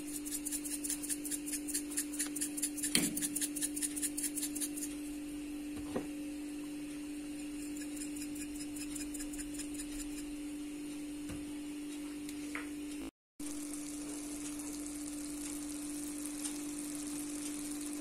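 Salt shaken from a plastic shaker over raw eggs in a bowl: a quick rhythmic rattle, about six shakes a second, for the first five seconds. A steady low hum runs underneath, with a couple of single clicks later and a faint steady hiss near the end.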